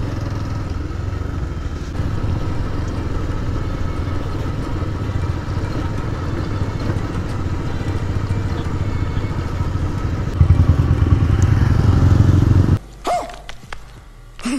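Motorcycle engine running steadily while the bike is ridden on the road, a little louder about ten seconds in. Near the end the engine sound stops abruptly, leaving a quieter background with a few clicks.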